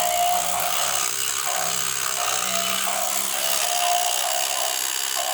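Battery-powered Dance Hero superhero toy playing a tinny, distorted electronic tune through its small speaker, with a short repeating note about once a second, over the whir of its dancing motor.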